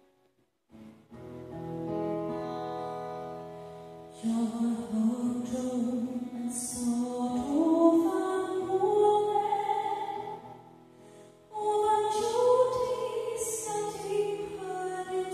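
A woman sings a slow song with acoustic guitar accompaniment. The guitar comes in about a second in, the voice enters about four seconds in, and the voice breaks off briefly past the middle before going on.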